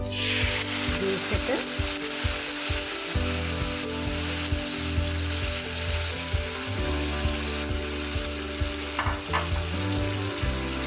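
Blended tomato purée poured into a hot pan of oil and fried minced garlic. It starts sizzling suddenly as it hits the oil and keeps sizzling steadily while it is stirred with a wooden spatula.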